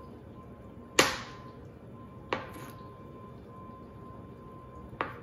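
Chef's knife slicing through cold butter and knocking down onto a cutting board, three separate strokes, the first the loudest.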